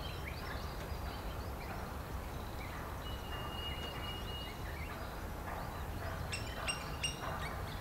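Birds chirping and calling in many short notes, with one long steady whistle about three seconds in and a run of sharper, ringing calls near the end, over a steady low rumble.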